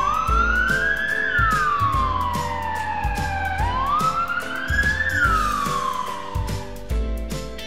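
Siren sound effect wailing up and down twice, over background music with a steady beat.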